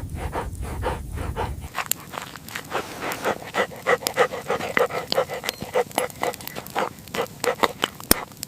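A dog panting fast and evenly, about four to five breaths a second, with one sharp click near the end.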